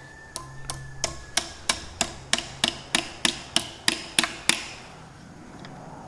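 About fourteen sharp metal-on-metal taps, about three a second, growing louder and then stopping about four and a half seconds in. A steel tool is tapping at the idler gear of a Chamberlain 9G tractor's front gearbox, working it loose for removal.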